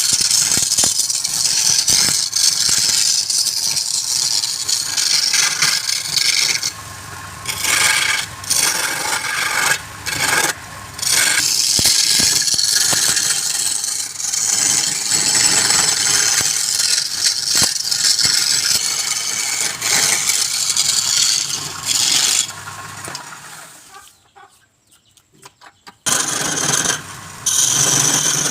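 Wood spinning on a turning lathe being worked by a tool, a loud hissing scrape that breaks off briefly again and again. It stops for about two seconds near the end, then starts again.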